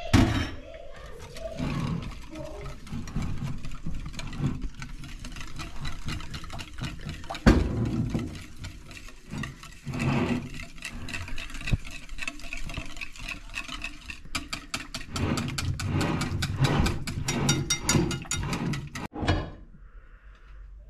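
Dough ingredients being mixed in a bowl: a continuous scraping noise, with a fast, even run of clicks for about five seconds in the second half.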